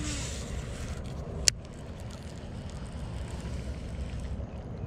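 Wind buffeting an action camera's microphone as a steady low rumble, with a brief hiss in the first second and a single sharp click about a second and a half in.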